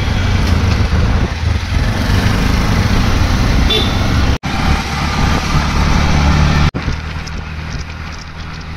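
Auto-rickshaw engine running steadily as it drives, heard from inside the open cabin, with street traffic around. The sound breaks off for an instant twice.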